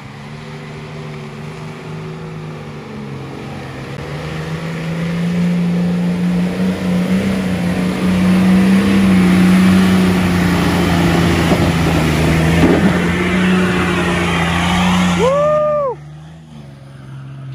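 A 4WD's engine revved up and held at high revs under hard load on a muddy clay climb, with a rising rush of wheels spinning and throwing mud that grows louder through the attempt. The engine and wheelspin cut off abruptly near the end as the driver lifts off.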